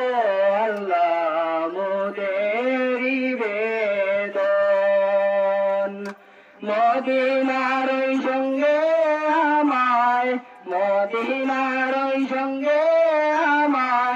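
A man singing a Bengali Islamic devotional song (gojol) solo without instruments, in long held notes with wavering ornaments. He breaks off briefly twice, about six and ten seconds in.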